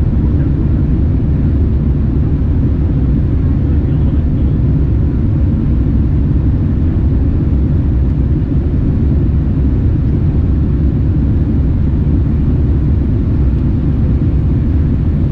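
Steady low rumble inside the cabin of a Boeing 787-9 airliner: engine and airflow noise, even and unbroken.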